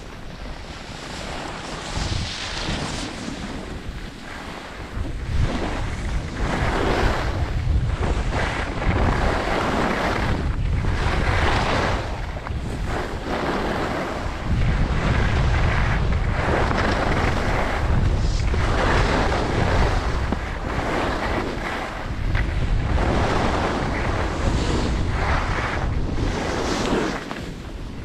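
Wind rumbling on the action camera's microphone while skis carve turns on packed, crusty snow, a scraping hiss that swells and fades with each turn every second or two. The wind rumble gets louder about five seconds in.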